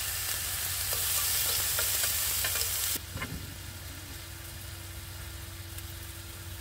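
Beef steak sizzling on a hot grill plate, with a few light clicks of metal tongs. The sizzle cuts off suddenly about three seconds in, leaving a quieter background with a faint steady hum.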